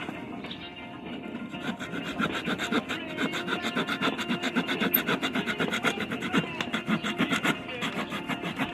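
The folding saw blade of a Leatherman Super Tool 300 multi-tool sawing wood back and forth in quick, rhythmic strokes, several a second.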